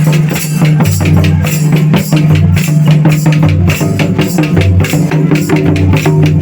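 Music with fast, dense drumming over a steady deep bass note, with a lower thud about once a second.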